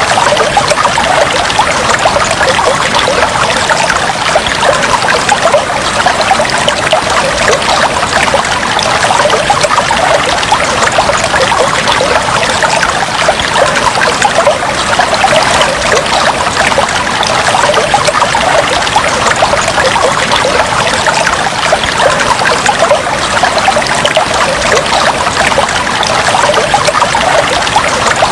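Fish tank water trickling and bubbling steadily, a dense patter of small splashes and bubbles without pause.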